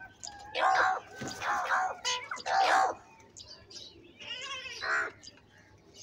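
House crows cawing: a string of harsh caws from several birds, some overlapping, with a short lull about halfway through.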